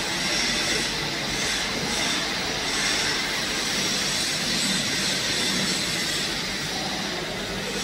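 Steady mechanical background noise, an even rushing hum with no clear rhythm or change.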